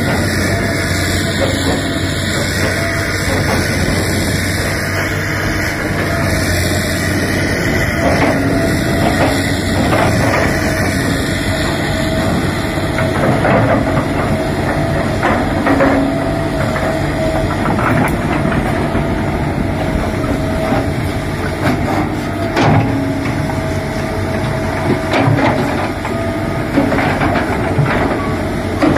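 Hitachi 330 excavator's diesel engine running steadily with a constant whine, while rocks are loaded, with scattered sharp knocks and clanks of rock that come more often in the second half.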